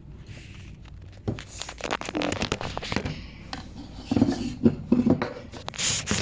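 Crinkling, crackling and clicking of small objects being handled, an irregular run of short clicks that gets busier after the first second.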